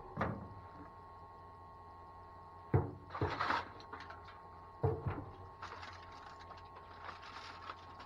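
A few sharp wooden knocks, just after the start, near three seconds and near five, as a board is set down on a wooden truck bed. Aluminium foil crinkles as it is handled, most of it in the second half, over a faint steady hum.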